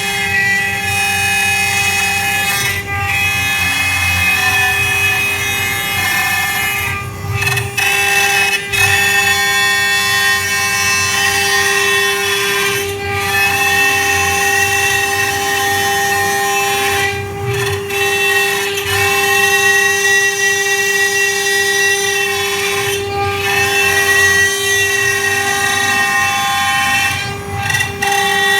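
3D CNC router spindle at 4,000 rpm cutting through a 3 cm jackfruit-wood board in 4 mm-deep passes. It gives a loud, steady, high whine, which dips briefly every few seconds as the bit changes direction or lifts.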